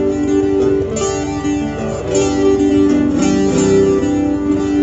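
Acoustic guitar strumming chords, each chord struck about once a second and left to ring.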